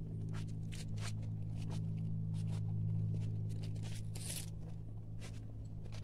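Footsteps and light rustling on leaf litter, soft irregular clicks over a steady low hum, with a brief hissing rustle about four seconds in.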